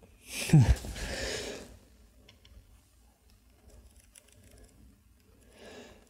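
A clear plastic spray bottle dropped into a shallow layer of water on a tabletop: a splash with a dull thud about half a second in, then water spattering for about a second.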